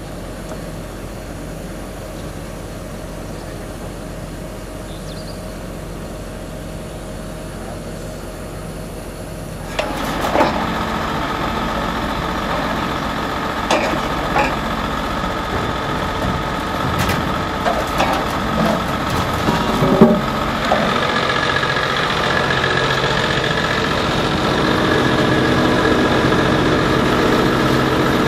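Heavy truck engines idling steadily. About ten seconds in the running gets louder, with a series of metal clanks and knocks as the crane lifts the manhole cover. From about twenty seconds a steadier, louder running with more hiss takes over, as the suction hose works in the sewer shaft.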